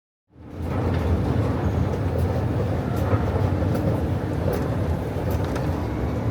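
Steady rumbling noise of a vehicle in motion, with a few faint clicks, fading in just after the start and out near the end.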